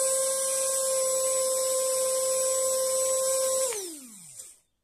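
Small 12 V brushed DC motor, its armature rewound with thicker 22-gauge copper wire for more speed and torque, running unloaded at high speed with a steady high whine. About three and a half seconds in it is switched off, and the whine falls in pitch as it spins down and stops.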